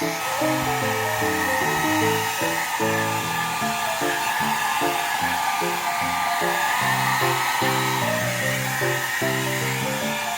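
Hand-held hair dryer blowing steadily, a constant airy hiss with a faint motor whine, over light background music of short repeated notes.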